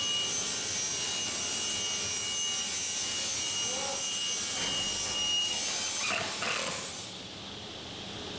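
Small electric motor running with a steady high whine over a hiss. It cuts out about five and a half seconds in, followed by two short scraping sounds.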